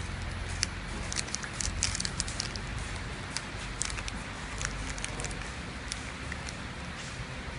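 Clear plastic flow-wrap packets crackling and clicking as they are handled, a burst of sharp crinkles in the first few seconds thinning out later. Under it runs the steady low hum of the flow pack machine and its conveyor.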